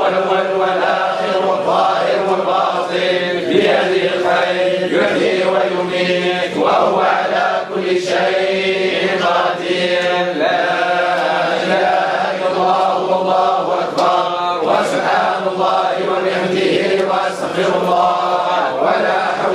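A group of men chanting Sufi devotional dhikr together in continuous melodic lines, with a steady low note held underneath.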